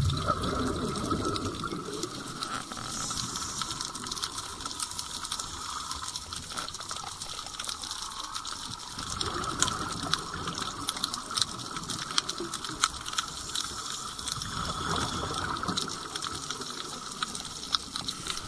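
Underwater sound of a scuba dive: a diver's exhaled regulator bubbles rush and gurgle near the start and again about fifteen seconds in, over a steady crackle of small clicks.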